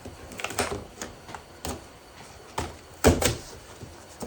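Handling noise: several short knocks and thumps, the loudest a double knock about three seconds in, as plastic gallon jugs of motor oil are moved about and set down.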